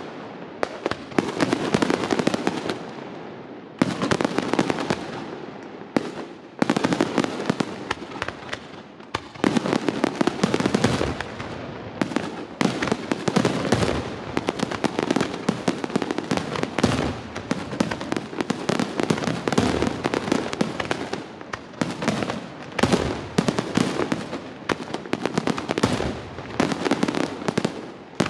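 Fireworks display: aerial shells bursting in quick succession, a dense run of bangs and crackling with a few brief lulls.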